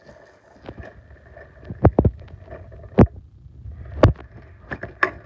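Handling noise: a low rumble with about six sharp knocks and bumps as the phone and hard plastic toys are moved about.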